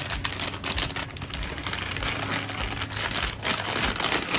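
Paper wrapper of a Morde compound chocolate slab crinkling as the chocolate is broken up inside it, with a dense, irregular run of small clicks and crackles as pieces fall into a bowl.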